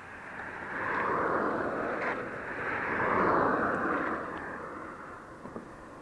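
Vehicles passing on the road close by, the sound swelling twice and fading away after about five seconds.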